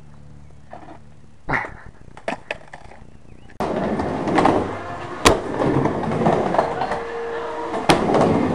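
A skateboard rolling back and forth on a mini ramp: a few light knocks at first, then from about three and a half seconds in a steady loud wheel rumble, broken twice by sharp clacks as the board hits the metal coping.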